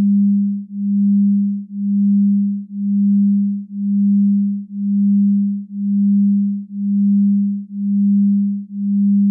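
A steady low electronic sine tone, a pure hum-like note, swelling and fading in even pulses about once a second.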